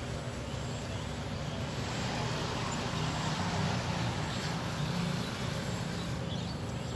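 A vehicle engine running with a steady low hum under even outdoor noise, swelling a little midway.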